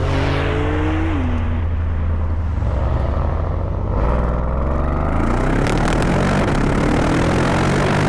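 A motor vehicle's engine running: its note drops in pitch over the first couple of seconds, then climbs steadily as it accelerates from about halfway through, with a rising rushing noise.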